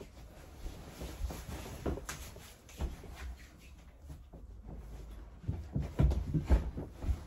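Scattered knocks, thumps and rustling of people moving about and dressing in a small room, with a cluster of louder thumps in the last two seconds.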